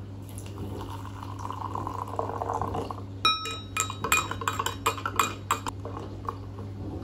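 Water poured into a cut-glass tumbler over instant coffee granules. About three seconds in, a metal spoon strikes the glass, then stirs with a rapid run of ringing clinks for about two and a half seconds, and oat milk starts pouring in near the end. A steady low hum runs underneath.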